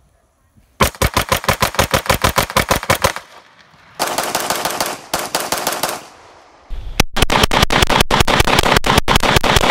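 Semi-automatic pistol firing fast strings of shots, about ten a second, in three bursts with short breaks between. The bursts start and stop abruptly.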